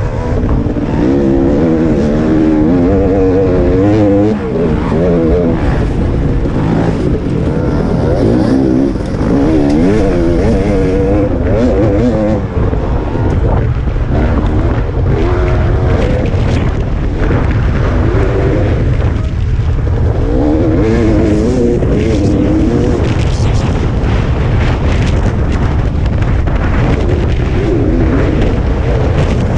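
Dirt bike engine revving up and down repeatedly while riding a rough off-road trail, over a constant heavy low rumble.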